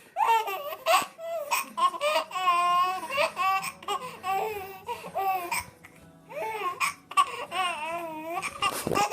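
A baby laughing in high-pitched bursts with hiccups, short sudden hiccups cutting into the laughter several times.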